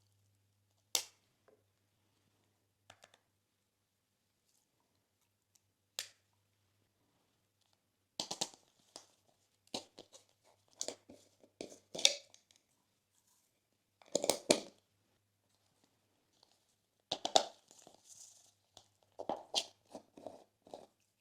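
Slime being squeezed and mixed by hand. A sharp click comes about a second in and another near six seconds, then from about eight seconds on there are clusters of crackles and crunches with short silences between them.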